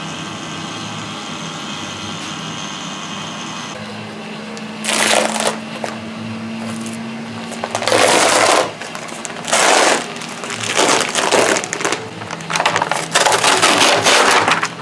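Vacuum pump running with a steady hum to draw resin through the bagged panels. From about five seconds in, several loud bursts of crinkling and tearing as the plastic vacuum bag, release film and breather fabric are peeled off the cured Kevlar and carbon epoxy panels, the longest near the end.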